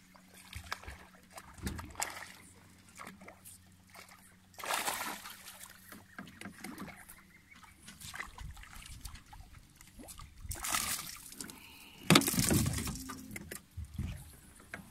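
A hooked peacock bass splashing and thrashing at the surface as it is reeled in beside the boat, mixed with scattered knocks. The loudest burst of splashing starts suddenly about twelve seconds in.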